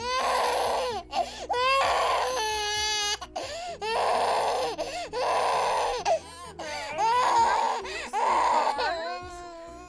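A baby crying: a string of loud wails, each about a second long with short breaks between, easing off near the end.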